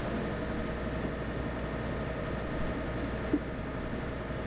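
A 1995 Gib'Sea 472 sailing yacht's inboard diesel engine running steadily under way: a steady low drone with a thin steady tone above it.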